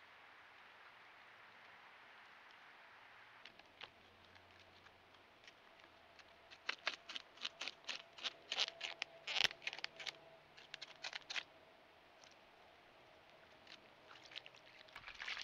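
A beaver gnawing bark off a stick: a quick run of crisp, crunchy clicks for several seconds in the middle, with a few more near the end.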